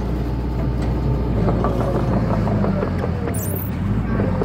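Small crawler bulldozer's diesel engine running steadily as the machine tracks over loose soil, with scattered clicks from the running gear. A brief high squeak comes about three seconds in.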